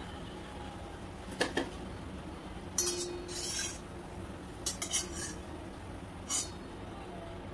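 A stainless steel slotted spatula clinks and scrapes against a kadhai in several short bursts as fried bhajiyas are lifted out of the oil. A faint steady background noise runs underneath.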